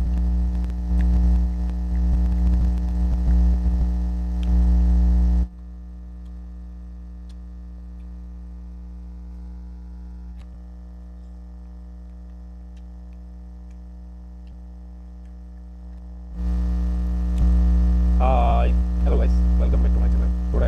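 Steady electrical mains hum with overtones. It is louder for the first five seconds or so, then drops for about ten seconds and rises again near the end. Faint small clicks of eating rice and curry by hand sound over it, and a man's voice begins near the end.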